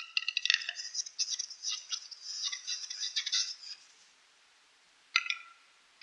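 Male western capercaillie in lek display: sharp knocking clicks that come quicker and quicker, then a dense, scraping run of song lasting about three seconds. After a short pause the clicking starts again about five seconds in.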